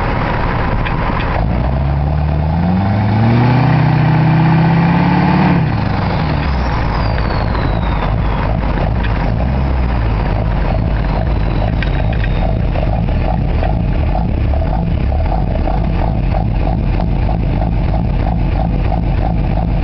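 Straight-piped 6.6-litre LLY Duramax V8 turbodiesel accelerating, its engine pitch rising for about four seconds, then the throttle lifts and the sound drops suddenly. A faint falling turbo whistle follows as the turbo spools down, and the engine then runs on steadily.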